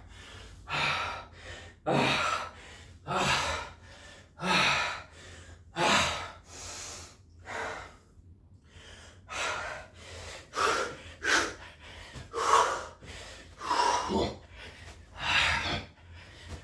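A man breathing hard during burpees: loud, forceful breaths, roughly one a second, with a brief pause about halfway.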